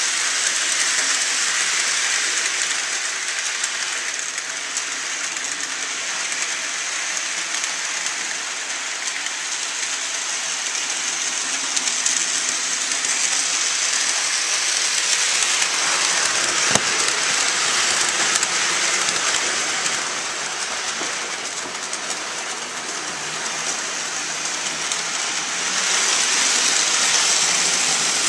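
HO scale model train running on the layout's track: a steady whirring hiss of the small motor and the wheels on the rails, easing off through the middle and building again near the end, with one sharp click about 17 seconds in.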